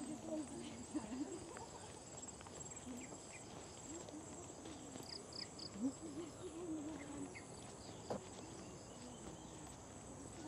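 Insects trilling steadily in high-pitched tropical jungle, with a few short bird chirps about halfway through and faint distant voices underneath.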